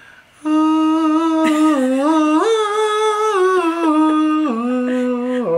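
A man singing one long wordless note in a high voice, starting about half a second in, stepping up in pitch partway through and then down twice near the end.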